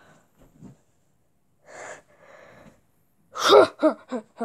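A person's sharp breath or gasp about two seconds in, followed near the end by a quick run of short, loud voiced sounds.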